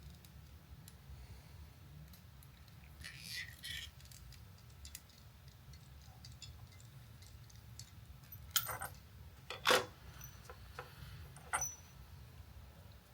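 Small metal coax connector parts and tools being handled on a worktable: scattered light clicks and clinks, with a few sharper knocks in the second half. A low steady hum runs underneath.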